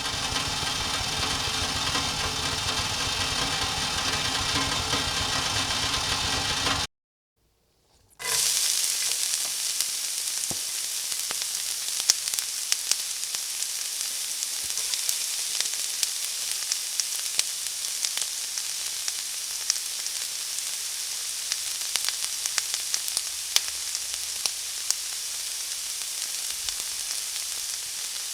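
Food frying in hot oil: a steady sizzling hiss with many small crackles and pops. Before it, a machine runs with a steady low hum, stops about seven seconds in, and a second of silence follows.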